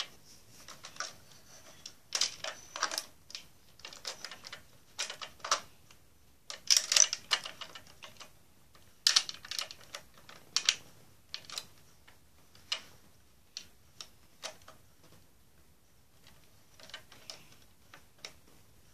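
Irregular clicking and rattling of small plastic toy parts, in bursts of quick clicks, as a toy fire engine's hose is wound back in.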